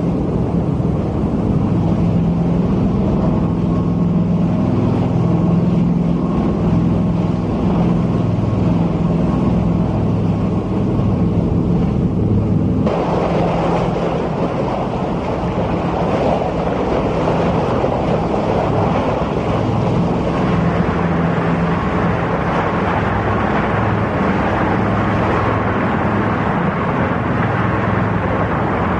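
A boat's engine running with a steady low drone. About thirteen seconds in, the rushing of water churned up along the hull and in the wake comes up loud over it.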